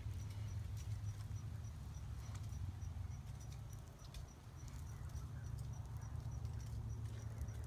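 Basset hound rummaging under a shrub: faint rustling and crackling clicks over a steady low rumble of wind on the phone's microphone. A faint high chirp pulses about four times a second.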